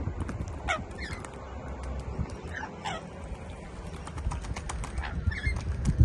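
Rainbow lorikeets splashing and flapping in a small tub of water, with a few short falling chirps. The splashing is loudest at the very end.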